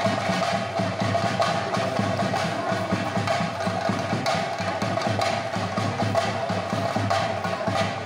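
Theyyam temple percussion: chenda drums beaten in a fast, continuous roll, with a steady high tone held above the drumming.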